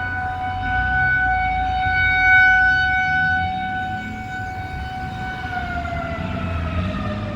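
Federal Signal 2001-130 outdoor warning siren sounding a steady single tone that swells and fades as the rotating head turns, then winding down, its pitch falling steadily from about five and a half seconds in.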